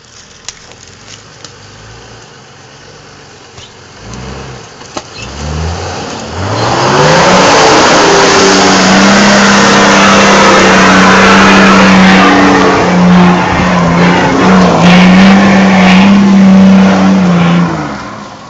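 A four-wheel drive's engine ticks over quietly, then revs up over a few seconds, about four seconds in. It is held loud at high revs under load for about ten seconds, with a heavy rushing noise, before backing off near the end.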